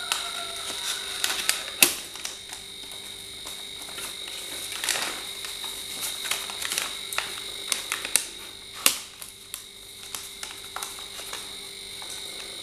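Cardboard shipping box being handled and turned over: scattered taps, scrapes and crinkles of the carton and its paper wrapping, with two sharper knocks, one about two seconds in and one near nine seconds.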